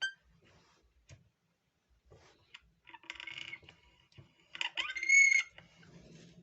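Small clicks and scraping as parts of a pump's non-return valve are handled, with a brief high squeak about five seconds in.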